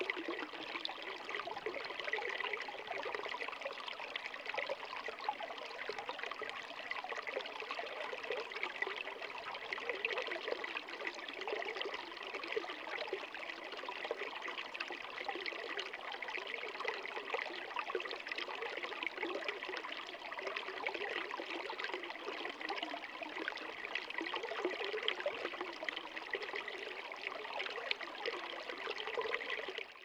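Small rocky stream trickling and splashing over low cascades between boulders, a steady even flow.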